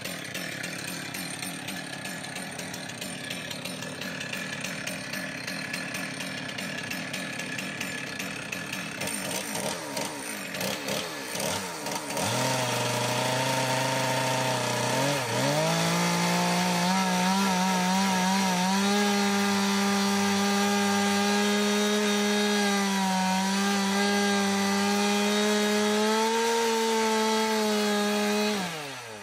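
Chainsaw running, rough and uneven for the first dozen seconds; then the engine revs up and holds a steady high pitch, wavering slightly, for about sixteen seconds before it drops away just before the end.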